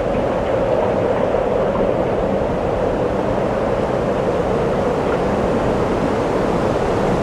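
Blowing wind, a steady, even rush without gusts or breaks.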